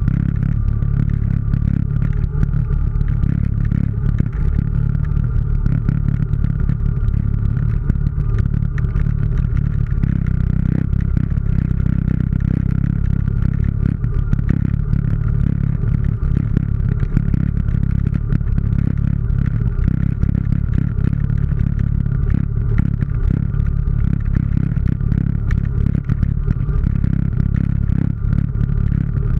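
ATV engine running steadily as the machine moves over a rough trail, with frequent rattling and knocks from the vehicle jolting over loose rock.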